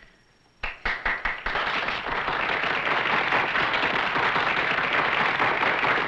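Audience applause: a few scattered claps about half a second in, quickly building into steady applause from a roomful of people.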